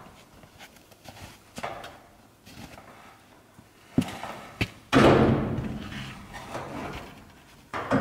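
Two sharp metal knocks about halfway through. Then a welding arc strikes abruptly and crackles with a steady hum for almost three seconds before cutting off: a tack weld joining the angle-iron window frame to the steel container wall. Another weld starts just at the end.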